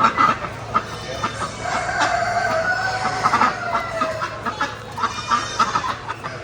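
Chickens clucking in cages, with a rooster crowing once for about two seconds in the middle. A steady low hum runs underneath.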